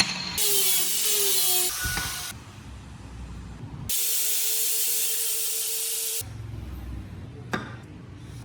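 Two bursts of spray hiss from a pressurised nozzle, the first about a second long and the second over two seconds, each starting and stopping sharply. A single sharp click comes near the end.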